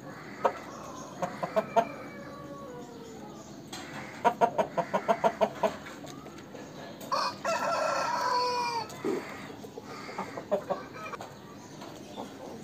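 Aseel roosters clucking in short rapid runs, one run of about six clucks a second. About seven seconds in, one rooster crows once, its crow falling in pitch at the end.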